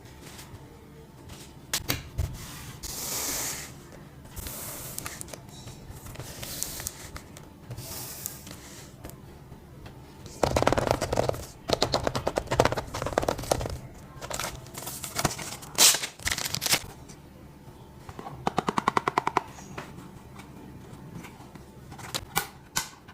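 Prize packaging handled and opened by hand: rustling, with several short bursts of rapid rasping clicks, the longest about halfway through.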